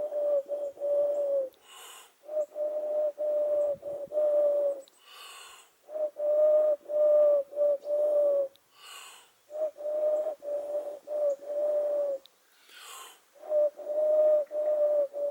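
A man imitating a wood pigeon's coo: repeated phrases of about five low hoots each, with a breath drawn between phrases.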